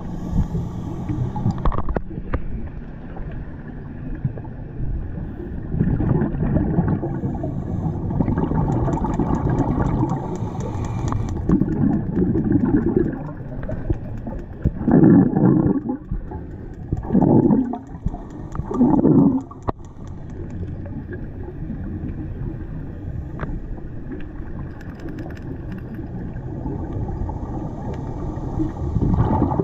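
Muffled underwater rumble picked up by a camera below the surface, with a few louder bubbling gurgles near the middle from scuba divers' exhaled air bubbles.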